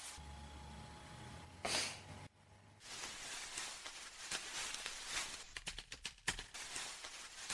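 A single short, sharp hay-fever sneeze about two seconds in, followed by softer scattered noise and a few clicks.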